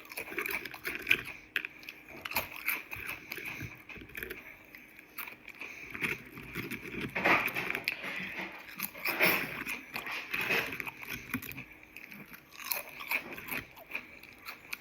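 A person chewing and crunching food close to the microphone, with a run of small mouth clicks and a few louder crunches in the middle.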